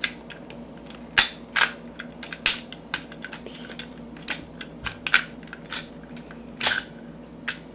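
Plastic parts of a Transformers Energon Ironhide action figure clicking and snapping as they are pulled out, folded and locked during transformation: irregular clicks, a handful of them louder.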